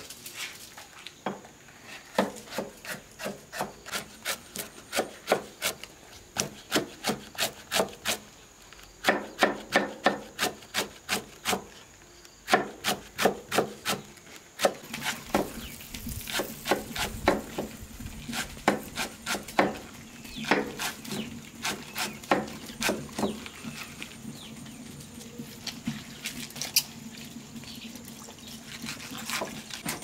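Knife chopping on a wooden cutting board: runs of quick, sharp strokes, about two to three a second, with short pauses between the runs.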